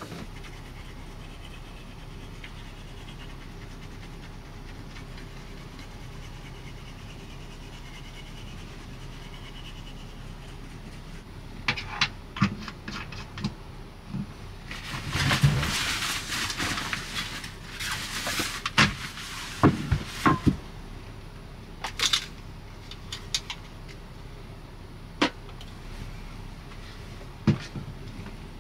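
Steady low background hum, then from about eleven seconds in a scattered run of small clicks, knocks and rustling as small objects are handled at a shelf, with the longest rustles about halfway through.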